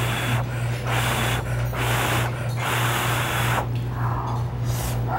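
Ramen noodles being slurped in several long, noisy pulls, one after another, over a steady low hum.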